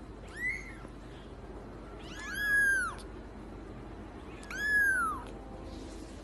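Young kitten mewing three times in high-pitched calls that rise then fall in pitch: a short mew just after the start, then two longer ones about two seconds apart.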